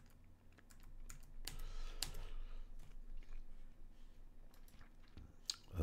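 Sparse clicks and taps from a computer keyboard and mouse, with a few louder clicks about one and a half and two seconds in and again just before the end.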